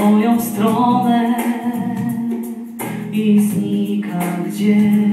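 A man singing a song into a handheld microphone over a steady instrumental backing, amplified through the hall's speakers.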